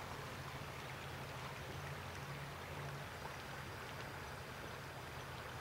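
Faint steady rush of river water flowing, with a low hum underneath.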